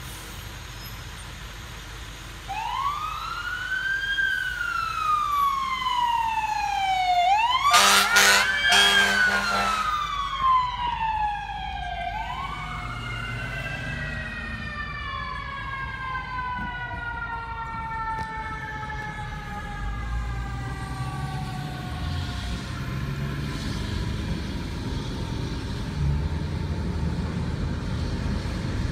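Fire engine siren wailing, slowly rising and falling through three cycles, with two short air-horn blasts about eight seconds in. The wail then fades out under low road rumble, heard from inside a following car.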